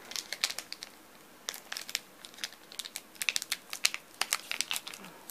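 Foil wrapper of a Pokémon Sun & Moon Burning Shadows booster pack crinkling in the hands: a short run of sharp crackles, a brief pause, then steady crinkling from about a second and a half in.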